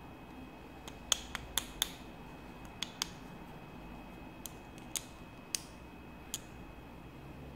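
Small metal parts clicking against each other as a miniature R188 ball bearing is handled and fitted onto a bolt with a spacer and nut. About ten short, sharp clicks come in irregular groups: a quick cluster in the first two seconds, then scattered single clicks.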